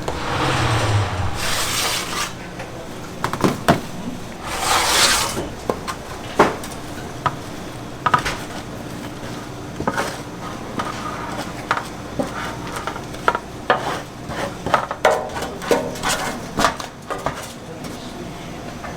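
Kitchen clatter: dishes, pans and utensils knocking and clinking in irregular sharp clicks. Two brief rushing, hissing swells come at the start and about five seconds in.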